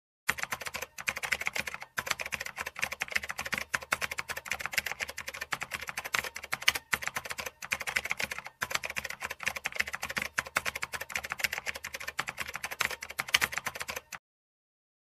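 Rapid keyboard typing clicks, a typing sound effect, in a fast steady stream with a few brief pauses, stopping about a second before the end.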